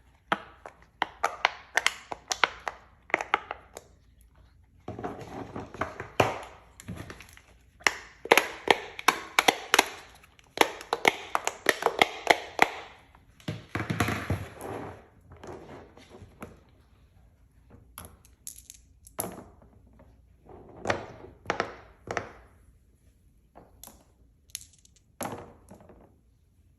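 Silicone pop-it fidget toy bubbles being pressed, quick runs of sharp little pops in clusters with short pauses between them.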